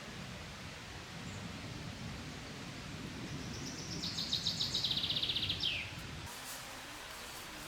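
A songbird sings one song of about two and a half seconds: a rapid series of high repeated notes, ending in a quick downward slur. Steady outdoor hiss lies underneath.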